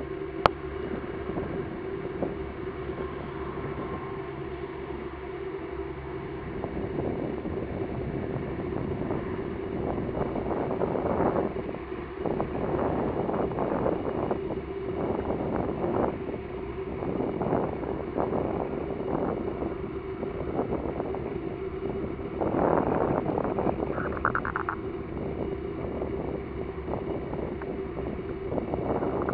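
Wind buffeting the microphone in uneven gusts, over a steady low hum.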